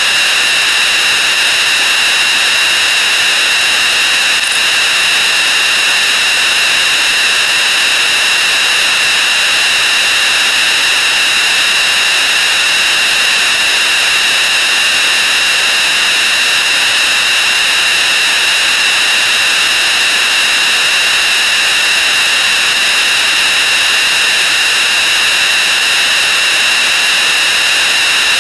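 Dense, steady hiss with a shrill ringing tone: counting sound effects sped up 64 times until they blur into one unbroken noise.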